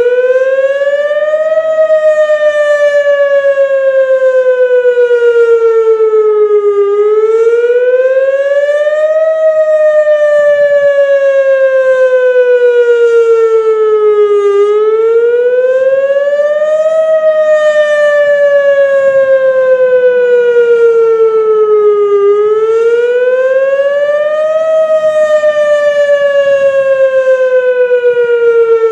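Single-cell Whelen WS-281 outdoor warning siren, run by an OA-1 controller, sounding the wail signal. Each cycle is a quick rise in pitch and then a slower fall, repeating about every eight seconds, four times.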